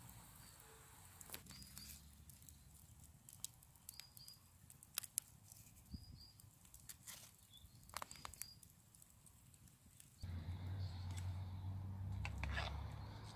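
Wood fire crackling with scattered sharp pops, while a small bird gives a short double chirp every couple of seconds. About ten seconds in, a steady low rumble comes in.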